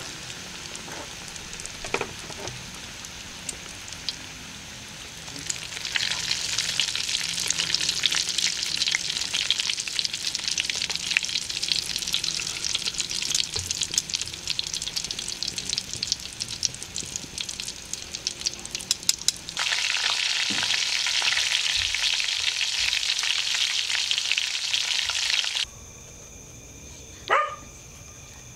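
Breaded pork katsu sticks sizzling and crackling as they deep-fry in hot oil in a metal pan, stirred with a spatula. The sizzle grows much louder about six seconds in and cuts off suddenly near the end, followed by one brief high squeal.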